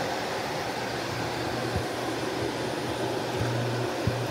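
Shark Navigator Lift Away Professional vacuum cleaner running in lift-away canister mode: a steady rush of suction with a low motor hum that grows stronger about three seconds in.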